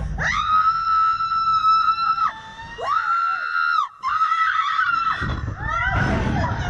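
Woman screaming on a slingshot ride: three long, high-pitched held screams, each cutting off sharply, followed by a noisy rush near the end.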